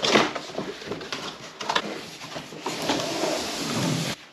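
Cardboard shipping box of a 200-watt solar panel being opened and handled: knocks and rustles of the flaps, then a longer scraping as the panel slides up out of the box. The scraping stops abruptly just before the end.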